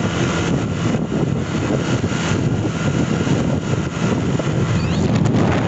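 Steady riding noise from a moving Honda CB Shine motorcycle: wind rushing over the microphone, with the engine running underneath.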